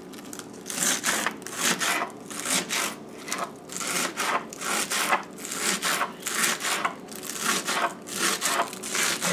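Kitchen knife chopping scallions on a wooden cutting board: a steady run of quick knife strikes on the board.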